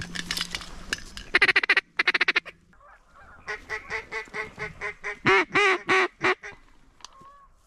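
Mallard duck call blown in a quick run of short quacks, then a longer string of about a dozen evenly spaced quacks, loudest near the end, working ducks that are locked up and coming in to the decoys.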